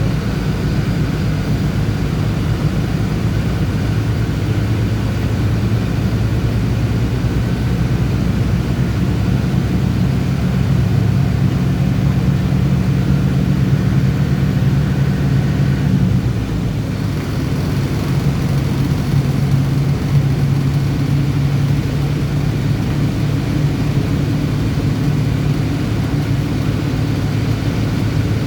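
Bus engine running steadily while the bus is driven, heard from the driver's seat. The engine note drops once about two-thirds of the way through, then holds steady at the lower pitch.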